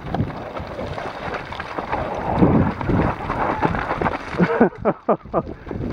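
Wind buffeting an action camera's microphone on a moving bicycle, with road rumble underneath. Near the end it drops off briefly in a few short gusts.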